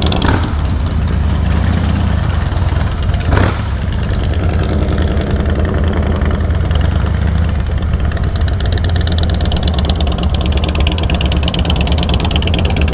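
Harley-Davidson V-twin motorcycle engines running at low speed, a steady low pulsing rumble as the bikes roll off. There is one brief sharp click about three and a half seconds in.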